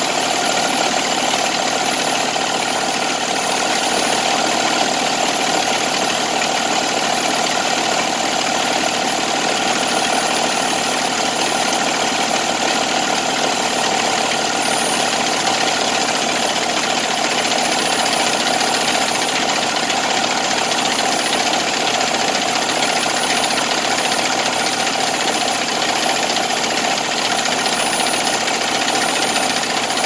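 Diesel truck engine running steadily at a constant speed. Trash in the fuel tank's pickup tube is restricting its fuel supply, so the supply-side vacuum reads far too high and the fuel pressure drops.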